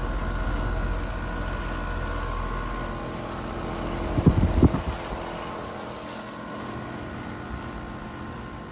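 Heat pump outdoor unit running in cool mode, its compressor and condenser fan giving a steady hum with several steady tones, with a few sharp knocks about four seconds in. The unit sounds rough, not running well.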